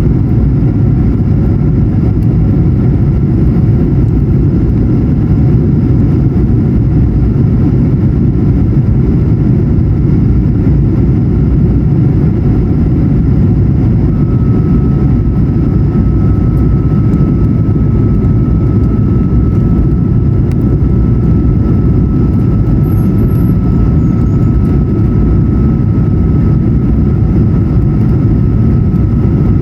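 Steady engine and airflow roar inside the cabin of an Airbus A220-100 in flight, its Pratt & Whitney PW1500G geared turbofans running steadily. A thin steady high tone joins the roar about halfway through.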